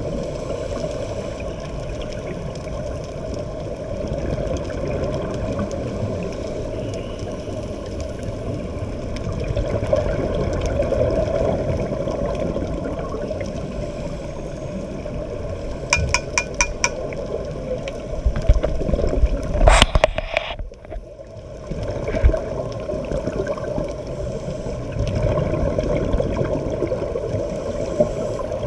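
Underwater sound heard through an action camera's waterproof housing: a steady muffled rush with scuba divers' exhaled bubbles gurgling. A quick run of about eight ticks comes about sixteen seconds in, and a loud short burst near twenty seconds, after which the rush briefly drops away.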